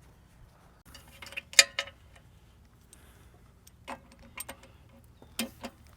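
Sharp clicks and clinks of a machine-control laser receiver and its cord connector being handled and snapped into place on a mounting pole. A cluster of clicks comes about a second and a half in, with the loudest then, and a few lighter ones follow near the end.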